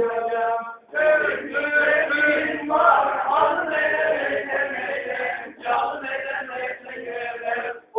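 A group of men singing a Turkish song together, one voice through a microphone, with short breaks between lines about a second in and near the end.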